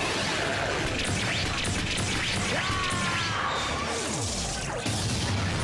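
Superhero TV fight sound effects for a rider's sword attack in a 'Clock Up' high-speed sequence: a dense run of whooshes, swishes and crashing hits, with quick sweeps in pitch.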